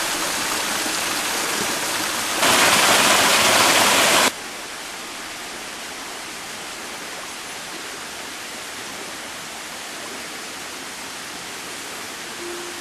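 Stream water running and splashing over rocks, heard as a steady rushing hiss. It turns much louder about two and a half seconds in, stops sharply about two seconds later, and then goes on as a quieter steady rush.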